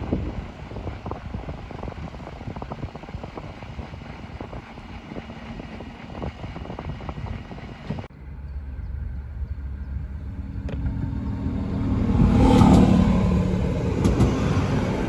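Wind buffeting the microphone over the rumble of an electric-hauled regional train approaching the station. It changes suddenly to a Rurtalbahn diesel railcar (Stadler RegioShuttle, class 650) close by, its underfloor engine drone swelling to a peak about three seconds before the end and then easing.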